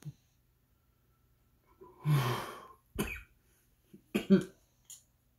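A man coughing after inhaling smoke from a homemade one-hitter pipe: a long breath out about two seconds in, then a single sharp cough and a quick pair of coughs.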